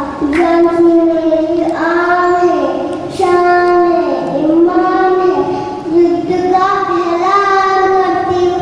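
A young girl singing solo into a microphone. She holds long notes of about a second each and slides between pitches, and no accompaniment is heard.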